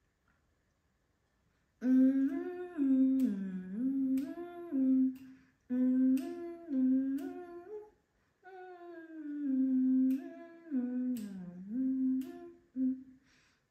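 A woman humming a slow, stepping tune in three phrases, beginning about two seconds in, with a few sharp clicks over it.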